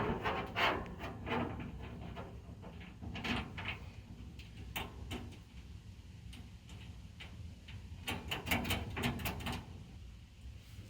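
Metal smoker parts and bolts clinking and clattering as they are handled and fitted, in short bunches: one at the start, brief ones about three and five seconds in, and a longer run about eight to nine and a half seconds in.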